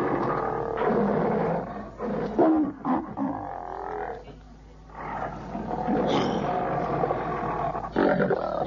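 Deep, snarling growls and roars like a big cat's, in several phrases with a short lull about four seconds in.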